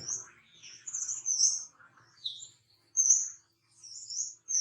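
A series of short, high-pitched chirping animal calls, one every half second to a second.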